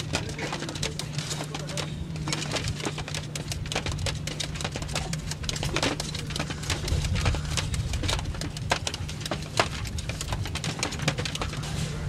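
Caged aviary birds calling: a dense, irregular run of short, sharp chirps and clicks over a steady low hum.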